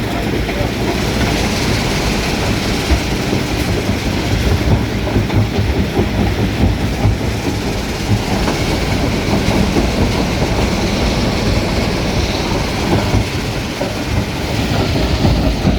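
Stone crusher machine running under load, a loud, steady, dense rattling clatter of rock being crushed.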